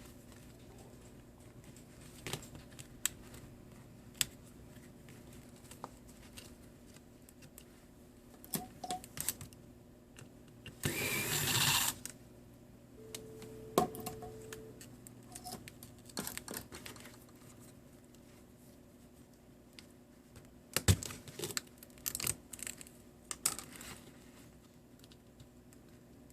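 Small clicks, taps and scrapes of hand tools and parts being handled while a Nexus 4 phone is taken apart, with a scraping rustle lasting about a second near the middle and a quick run of sharper clicks later on.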